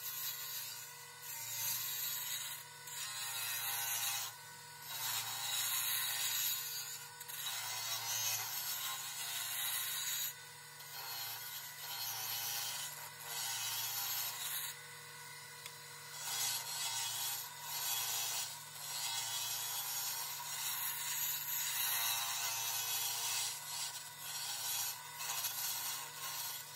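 Wood lathe running with a steady low hum while a turning tool cuts a spinning canary wood handle blank, the hiss of the cut swelling and dropping in passes of a second or two as the tool engages and lifts off.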